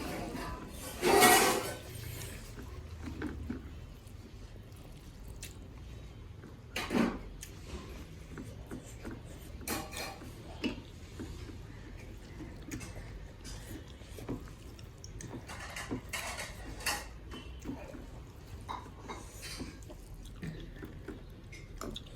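Mukbang eating sounds: chewing and slurping of dhedo and chicken gravy, with scattered light clinks of a plate or bowl and one louder sound about a second in.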